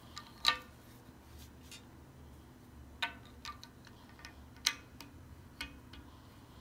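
Plastic Lego bricks clicking as they are handled and pressed together by hand: a handful of short, sharp clicks, the loudest about half a second in and again about two-thirds of the way through.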